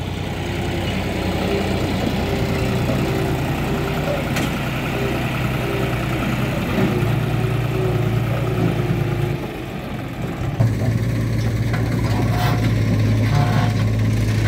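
Diesel engines of a John Deere 5310 tractor and a JCB 3DX backhoe loader running at a soil-loading site, a steady low engine hum. The sound drops briefly about ten seconds in, then picks up again.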